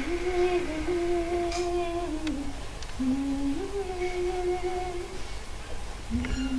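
A woman humming a slow, simple tune on long held notes, in phrases of two or three seconds with short breaks between them.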